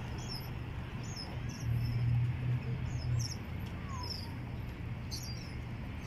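Seabirds calling, short high chirps repeating every second or so, over a steady low rumble that grows louder for about a second and a half near the middle.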